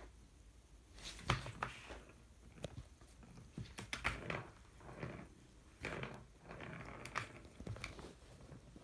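A cat batting the balls around a plastic circular track toy: irregular bursts of clicking and rattling as the balls clack in the track and paws knock the plastic, starting about a second in.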